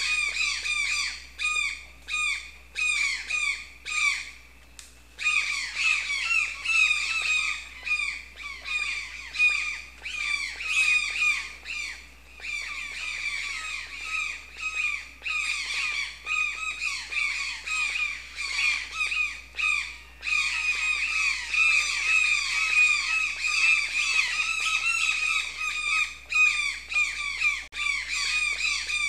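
A flock of birds squawking, with many harsh calls repeating rapidly and overlapping. The calls thin out briefly about four seconds in.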